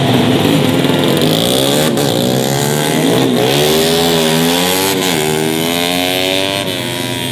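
Several tuned 150 cc four-stroke underbone race motorcycles running at high revs together, their engine notes rising and dipping against one another, with sharp drops in pitch about three and five seconds in.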